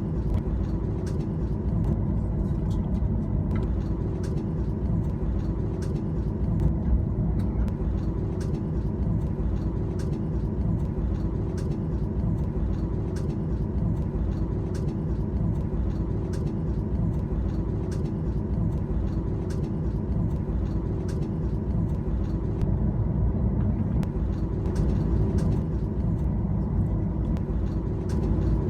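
Steady low rumble of a Boeing 737's jet engines heard from inside the cabin, with a few even hums over it and frequent faint clicks or rattles.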